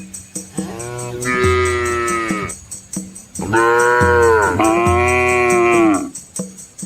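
Cows mooing: two long moos, the second louder, over background music with a steady beat.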